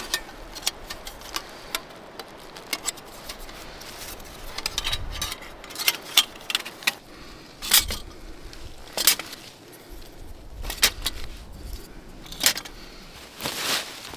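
A homemade wooden mallet knocking on wood, with many lighter clicks of wood and tool handling between the strikes; the louder knocks come about every second and a half in the second half.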